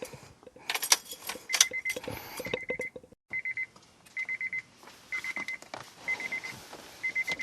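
Keys rattling and clicking, then a car's warning chime beeping about once a second, each beep a short buzzy tone, as from the Honda Accord's key-in-ignition or door-open reminder.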